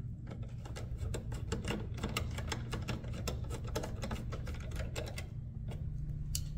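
Hand ratchet clicking in quick, irregular runs as a small screw is driven in with a socket on an extension.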